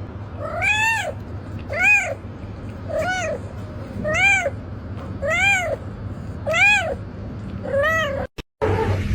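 A cat meowing seven times in a row, about once every 1.2 seconds, each meow rising and then falling in pitch.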